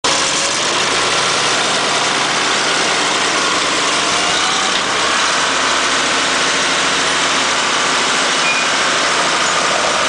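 1986 Case 680K backhoe loader's diesel engine idling steadily.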